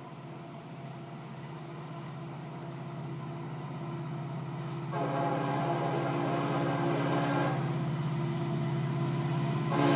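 Diesel freight locomotive approaching, its low engine rumble growing steadily louder. Its air horn sounds one long chord about halfway through, and a second long blast starts near the end: the opening of the horn signal for the grade crossing.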